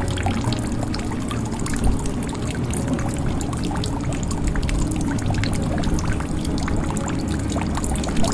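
Water pouring and trickling into a jug, with a dense, irregular patter of drops.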